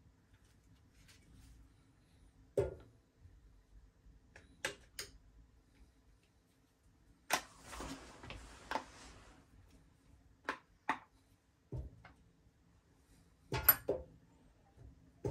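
Scattered sharp clicks and taps of small hard objects being handled, a few of them loud, with a short scratchy rustle about seven seconds in and two loud knocks near the end.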